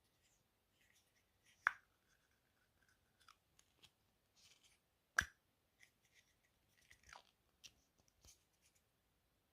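Plastic Zippo storage case being handled: three sharp plastic clicks about three and a half seconds apart, as the latch clip and lid snap, with faint rustling between them.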